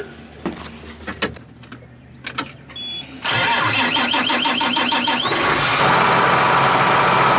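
A few light clicks, then about three seconds in a truck engine is cranked by its starter, a rapid even churning for about two seconds, and catches and keeps running.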